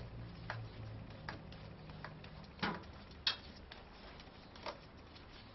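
Scattered light clicks and taps as hands fit a bolt and the chain guard on a BMW F650GS motorcycle's swingarm, over a faint low hum. The sharpest taps come about two and a half and three seconds in.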